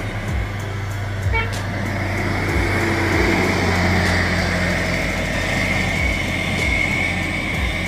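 Large coach's diesel engine running as the bus drives past close by, growing loudest about three to four seconds in and then easing off as it moves away.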